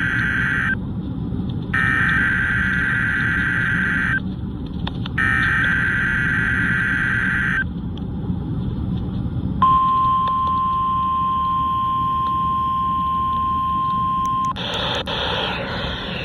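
NOAA Weather Radio Required Weekly Test over a receiver: the end of one buzzy SAME data burst and then two more, each about two and a half seconds with a second's gap, then after a short pause the steady 1050 Hz warning alarm tone for about five seconds, cut off suddenly. A steady radio hiss runs underneath.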